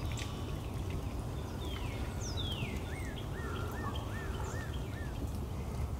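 A small bird singing: a few quick downward-sliding whistles, then a run of about five short arched notes, over a steady low background rumble.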